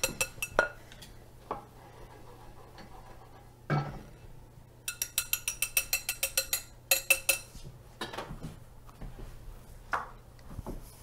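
A utensil clicking and scraping against a glass mixing bowl in quick runs of about seven clicks a second, each with a short glassy ring, as the tempered egg-yolk custard mixture is emptied out of the bowl. A duller knock of cookware comes a little before the main run.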